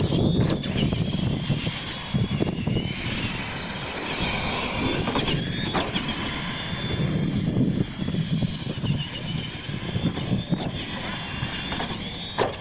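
Electric RC monster trucks racing on dirt: a high motor whine that rises and falls with the throttle over tyre and chassis rattle, with a sharp knock about six seconds in and another near the end as a truck lands off a jump.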